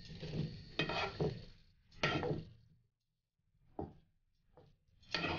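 Wooden spatula stirring cauliflower florets through boiling turmeric-and-salt water in a non-stick pan, the cauliflower being parboiled. A few scraping strokes, a pause of about a second past the middle, then several shorter strokes.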